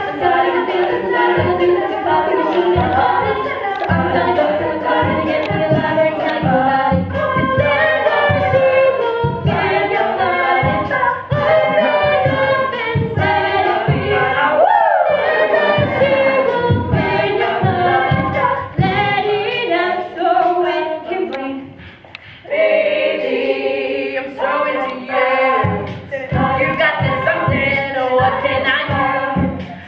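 All-female a cappella group singing a pop song live: a solo lead over the group's backing vocals, with a steady low beat under them. A long vocal slide falls in pitch about halfway through, and the singing breaks off for a moment a little over two-thirds in.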